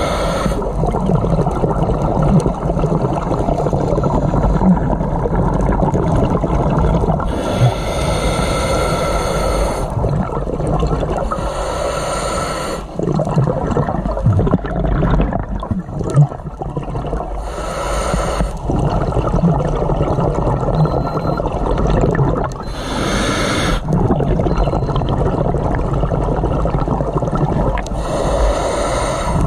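Scuba diver breathing underwater through a regulator: a burst of exhaled bubbles about every five seconds over a steady low rumble.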